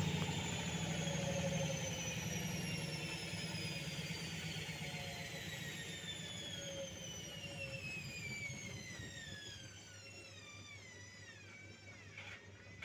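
Front-loading washing machine drum coasting down from a short spin with an unbalanced small load: the motor whine glides steadily lower in pitch and fades as the drum slows. A short knock near the end.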